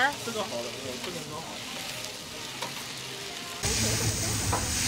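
Flat rice noodles and vegetables sizzling on a hot flat-top griddle while metal spatulas toss and scrape them. The sizzling becomes suddenly louder and fuller about three and a half seconds in.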